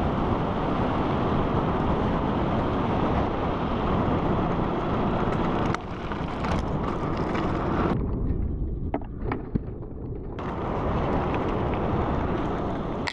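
Strong wind buffeting on an action camera's microphone as a BMX bike rolls fast downhill, a dense low rumble with a few light knocks from the bike. The rush turns duller for a couple of seconds in the middle.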